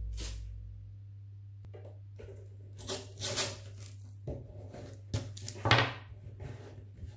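A music track fading out, then a low steady hum and a handful of short scrapes and knocks, the loudest about three quarters of the way in.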